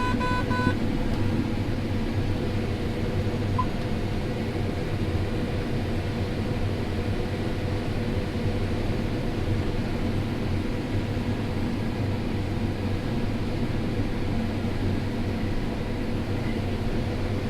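John Deere S670 combine running steadily while cutting corn, heard from inside the cab: an even machine drone with a constant hum. A short two-tone electronic beep sounds at the very start.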